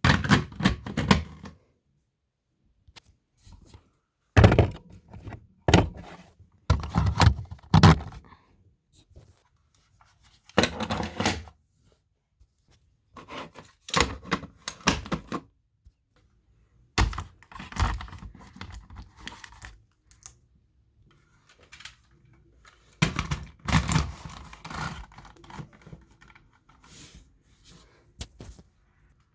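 Plastic smoke alarms being handled and put back in place: irregular bunches of knocks, clicks and clatter with short quiet gaps between them.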